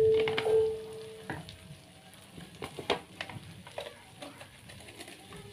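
Ground chilli and shallot paste frying in a wok, with scattered small pops and crackles and a few spatula taps. A steady held tone sounds over it and stops about a second in.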